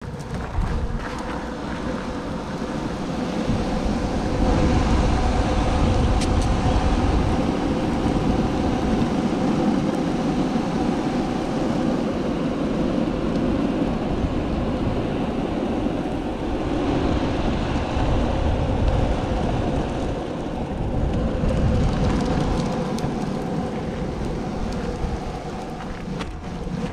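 Longboard wheels rolling over pavement: a steady rumble with a faint hum, rising and falling in level, and a couple of sharp clicks.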